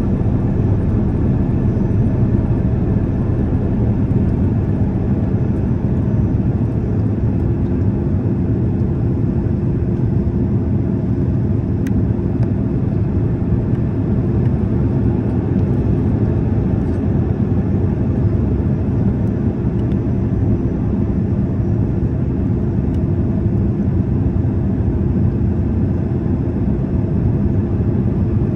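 Jet airliner cabin noise heard from a window seat: a steady rush of engine and airflow noise with a steady hum, unchanging throughout.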